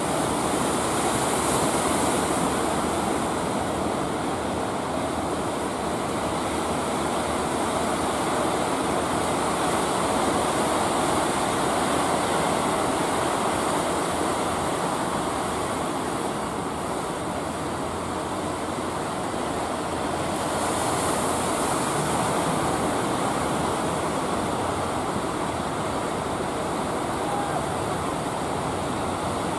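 Surf breaking and washing in, a steady rush of sea noise, with a higher hiss swelling up twice, near the start and again about two-thirds of the way through.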